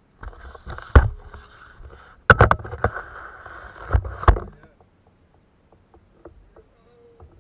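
Knocks and splashing at a plastic fishing kayak: a few seconds of rushing noise broken by several sharp thumps, the loudest about two seconds in, then a few faint clicks.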